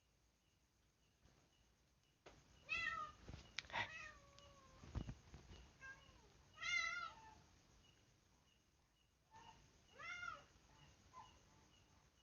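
A domestic cat meowing three times, each call a short arching meow a few seconds apart, with a few clicks and a dull thud around the first two.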